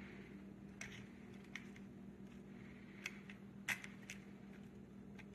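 A few faint, light clicks of a metal spoon against a pan and a serving spoon as sautéed vegetables are spooned onto taco shells, over a steady low hum.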